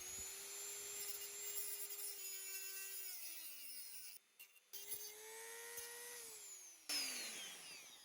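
Handheld Dremel rotary tool running at high speed with a steady whine, winding down in falling pitch about three seconds in, restarting, then winding down again near the end, with a brief harsher burst of grinding about seven seconds in. It is being used on a seized fastener that would not come off by hand.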